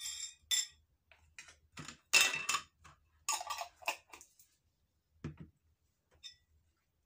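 Spoon clicking and scraping against a glass jar of shrimp paste in a run of short sharp clinks, loudest about two seconds in. Then the jar's lid is screwed on and the jar set down on the table.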